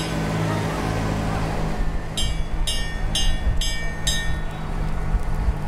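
A large vehicle's engine running steadily, with a series of five short high-pitched tones about half a second apart through the middle.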